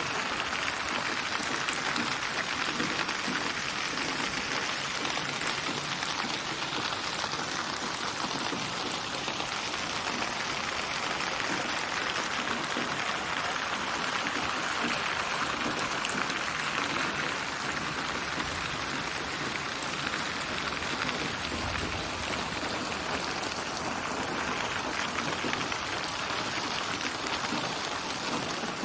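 Steady rain falling on a surface, an even patter of many drops that doesn't let up.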